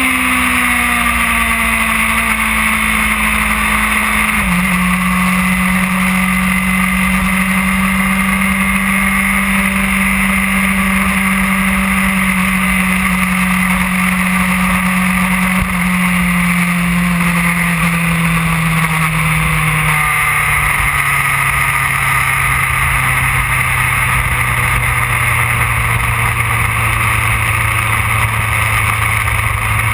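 2008 Yamaha R1's inline-four engine running steadily under way, its note sinking gradually and stepping down suddenly about four seconds in and again near twenty seconds. Wind rushes steadily over the bike-mounted camera throughout.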